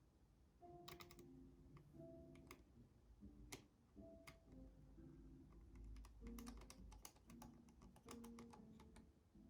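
Quiet background music, a soft melody of held notes, with light irregular clicks of typing on a laptop keyboard, some in quick runs.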